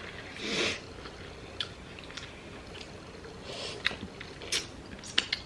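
Close-miked eating of a shrimp and crab seafood boil: chewing and wet mouth sounds, with a soft swell about half a second in and a few sharp clicks in the last second and a half.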